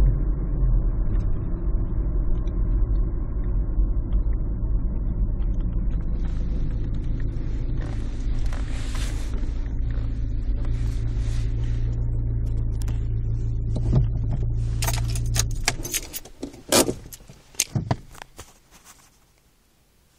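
A vehicle engine running with a steady low rumble, cutting out about three-quarters of the way through. A few sharp clicks and knocks follow just as it stops.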